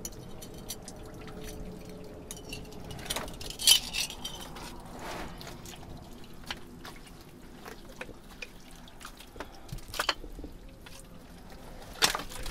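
Glass bottles clinking and knocking as they are handled, among wet, dripping noises; a sharper knock about four seconds in and another near the end.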